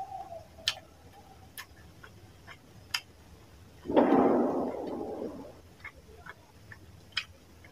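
Close-miked mukbang eating sounds: sharp wet clicks and smacks of a mouth chewing. About four seconds in, a louder wet squelch of fingers mashing rice into fish curry gravy, fading over a second or so.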